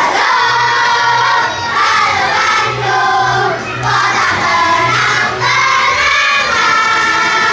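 Children's choir singing together, the voices gliding and breaking phrase by phrase, with a low note pulsing regularly beneath them.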